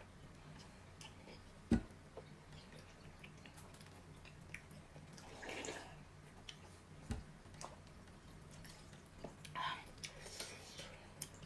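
Wet eating sounds from a bowl of noodles in broth: sips and slurps of soup and noodles a few times, with scattered small clicks of chewing. A dull thump about two seconds in and a softer one around seven seconds.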